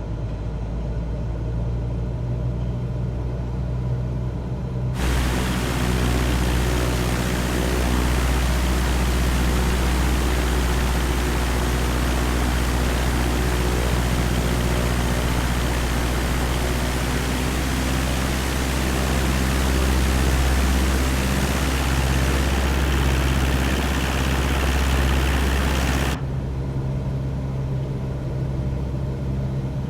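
Cessna 172's piston engine and propeller droning steadily in flight, heard from inside the cabin. A loud steady hiss cuts in abruptly about five seconds in and cuts off just as abruptly near the end.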